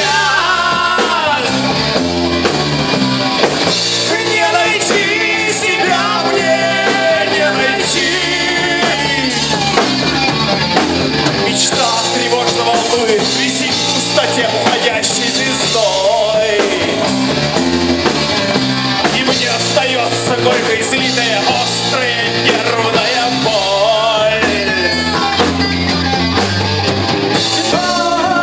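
Rock band playing a song with sung lead vocals over a drum beat.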